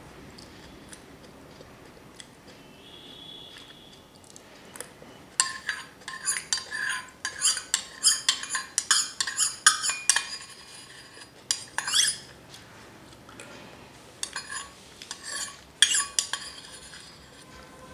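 Stainless steel spoon scraping and clinking against a small steel bowl as it is scraped clean. The clinks ring brightly. After a quiet start they come in a quick flurry for about five seconds, then there is one rising scrape, and a few more clinks come near the end.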